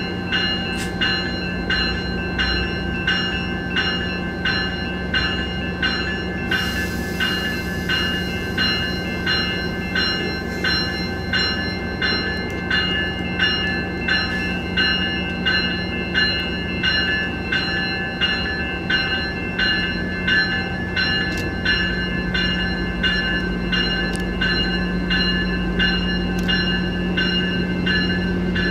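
A warning bell rings steadily, just under two strokes a second, over the hum of a Metrolink train's diesel locomotive. About two-thirds of the way through the low engine rumble grows as the train starts to pull out of the station.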